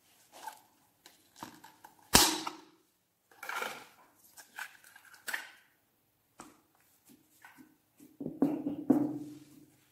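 Small plastic slime tub being opened with a sharp plastic click about two seconds in, then clear slime pulled out of it with sticky crackling, and near the end a hand pressing into clear slime in a glass dish, squishing.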